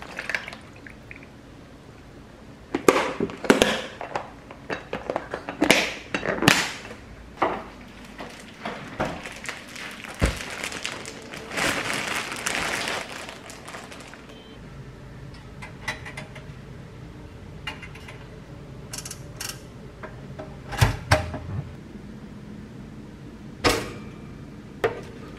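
Kitchen handling sounds: knocks and clatter of plastic food containers, then a plastic bread bag rustling and crinkling for a few seconds around the middle. Near the end come a few sharp clicks from a pop-up toaster as the toast springs up.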